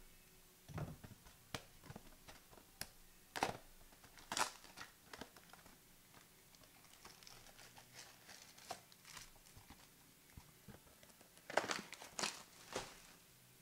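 Trading-card pack wrappers crinkling and tearing as packs are opened, with cards handled in between: scattered short rustles and snaps, a cluster of louder ones near the end.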